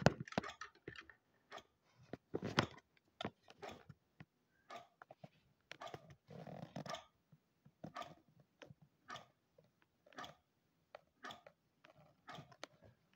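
Scattered clicks, taps and brief rustles at irregular intervals as the phone is handled and swung about, with no steady motor running.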